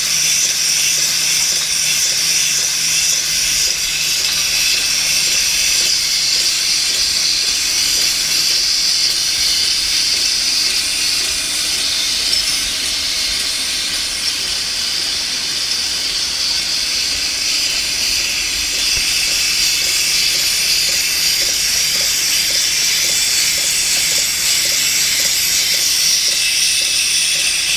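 H&K filling machine running at 110 bottles a minute, giving a steady, loud hiss.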